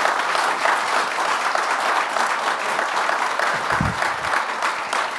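Audience applauding: many hands clapping in a steady patter, with a brief low thump about four seconds in.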